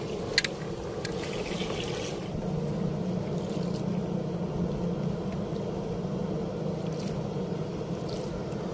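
A small boat's engine hums steadily over flowing river water, with a few faint brief clicks.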